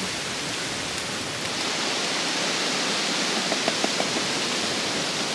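Steady hiss of a strong wind blowing through the trees, rising slightly about a second and a half in, with a few faint ticks near the middle.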